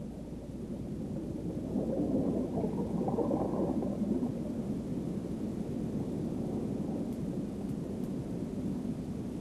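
A low, dull rumble with no clear tone, swelling between about two and four seconds in and then holding steady.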